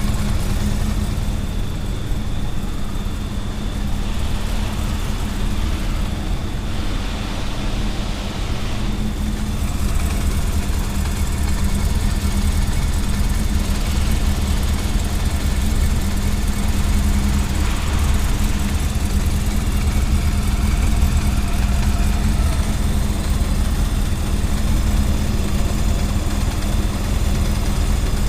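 Honda CB400SF inline-four engine idling steadily just after start-up, with a rattling noise that the owner hears only for the first minute and is unsure is normal.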